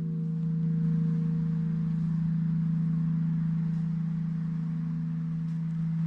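Church bells ringing in the bell tower, heard from close beside them: a deep, steady hum with fainter higher tones above it.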